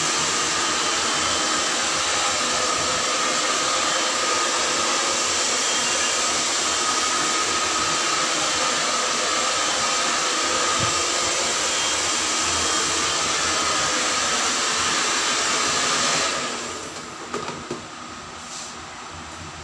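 Handheld hair dryer blowing steadily on wet hair, a loud whoosh with a faint whine, switched off about sixteen seconds in. After that only a quieter steady background hum and a few light knocks are left.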